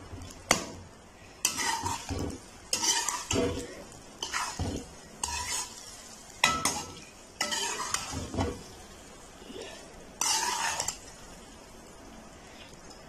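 A metal spatula scrapes and stirs macaroni in a metal pan in irregular strokes, with a sharp clink about half a second in. This is raw egg being mixed through the hot pasta. The strokes stop near the end.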